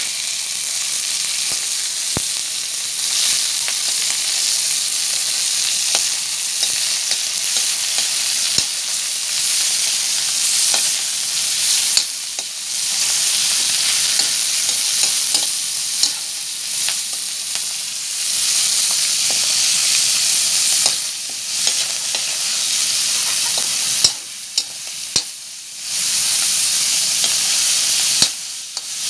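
Minced pork frying in hot oil in a wok with garlic and onion, a steady loud sizzle, while a metal spatula stirs it with frequent scraping clicks against the pan. The sizzle drops off briefly near the end before picking up again.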